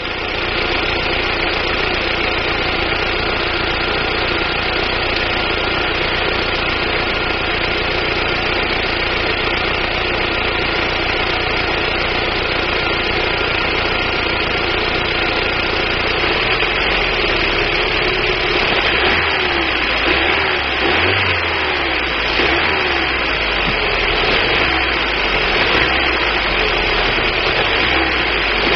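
1999 Daewoo Nubira's 2.0 L DOHC four-cylinder engine running at idle, an engine the owner suspects of misfiring from weak spark out of the DIS ignition coil. Steady for the first half, then from about halfway the running turns uneven, its pitch wavering up and down.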